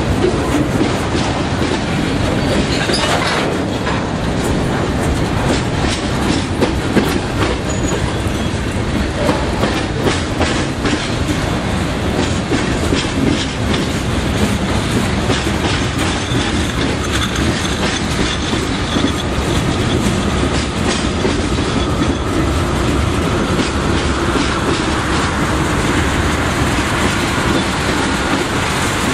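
Train cars rolling past close by, their wheels clacking steadily over rail joints. A faint, thin wheel squeal rises slightly in pitch in the second half.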